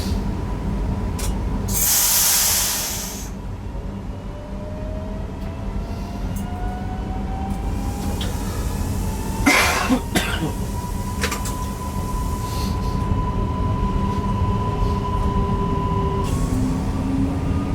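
Newag Impuls EN63 electric multiple unit heard from the driver's cab, running along the line with a low wheel-and-rail rumble. Its electric traction drive whines, rising in pitch as the train picks up speed and then holding steady. There is a short hiss about two seconds in and a couple of sharp knocks around ten seconds in.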